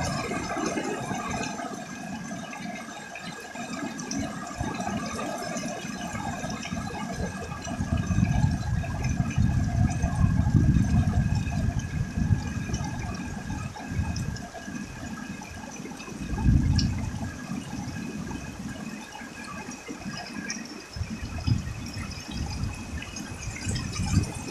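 Heavy rain pouring down in strong wind, with wind gusts rumbling on the microphone, strongest from about eight to twelve seconds in and again briefly at about sixteen seconds.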